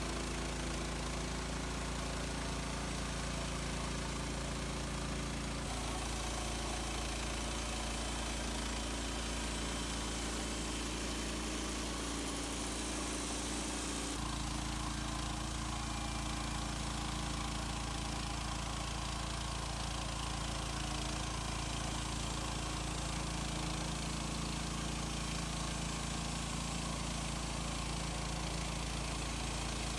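Woodland Mills HM130 Max portable bandsaw mill's gas engine running steadily during milling, its tone shifting about six seconds in and again about fourteen seconds in.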